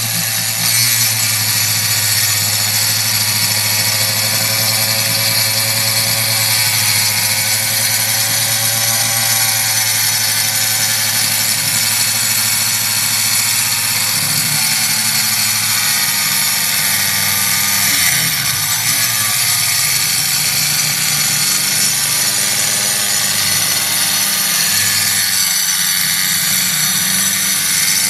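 Angle grinder with a diamond blade cutting through Hardie plank fiber-cement board: a steady high whine from the motor and blade, with a gritty grinding noise from the cut.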